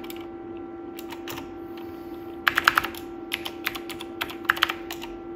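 Keystrokes on the fold-down keyboard of a Dolch PAC 60 486 portable computer, logging in to Minix: a couple of single presses, then quick runs of key clicks from about two and a half seconds in as a password is typed. A steady hum runs underneath.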